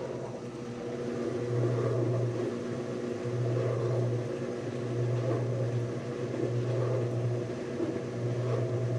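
Whirlpool/Kenmore washing machine running, its motor humming in repeated pulses about a second long with short gaps between them.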